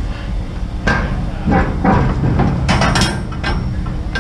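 Metal clanks and knocks from the steel doors and door fittings of a shipping container being opened, an irregular run of hits lasting about two and a half seconds, over a steady low rumble.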